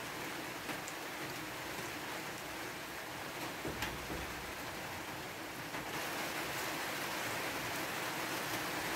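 Steady hissing background noise with a few faint clicks of a spoon and fork on a plate while eating; the hiss grows slightly louder about six seconds in.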